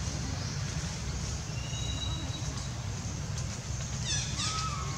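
Steady low rumble with a thin high whistle around the middle and, about four seconds in, a short run of high-pitched falling animal calls followed by a thin held whine.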